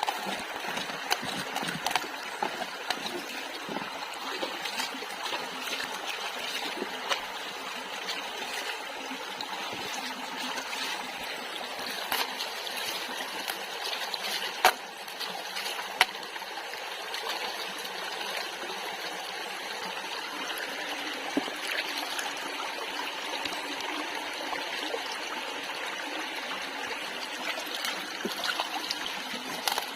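Water running and trickling steadily, with a couple of sharp clicks about halfway through.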